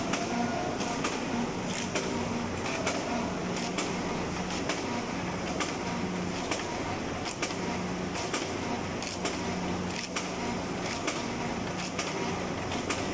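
Asta Pro-Falcons chicken cutting machine running: a steady motor hum with frequent sharp clicks and knocks, about two a second, as its conveyor belt carries chicken through the blades.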